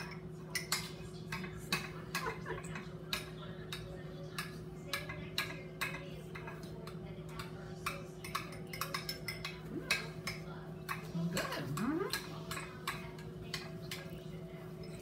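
Metal spoons clicking and scraping against small ceramic ramekins as several people eat, in light, irregular taps over a steady low hum.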